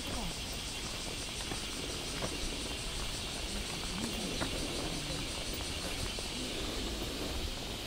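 A steady, high-pitched insect chorus over a low rumble, with a few faint footsteps on the path.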